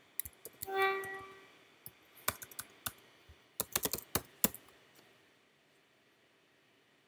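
Computer keyboard typing: scattered key clicks, with a quick run of keystrokes between about three and a half and four and a half seconds in. About a second in, a brief steady pitched tone sounds over the typing.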